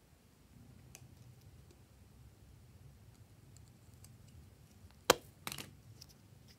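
Plastic caps pulled off two glue sticks: a sharp click about five seconds in, followed half a second later by a second, rougher click. Faint ticks of the plastic sticks being handled come before.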